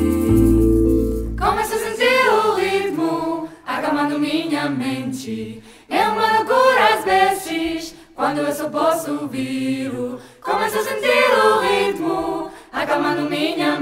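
Jazz song: a held chord with a low bass note rings for about the first second and a half, then a female voice sings short melodic phrases over the accompaniment, with brief breaks between phrases.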